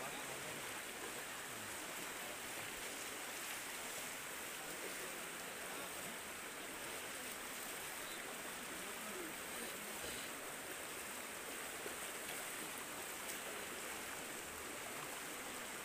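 Floodwater flowing across a road, a steady even rush with no distinct events.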